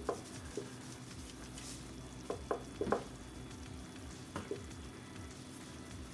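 Onion, tomato and pepper mixture sizzling gently in a frying pan, with a few short light clicks, most of them about two to three seconds in.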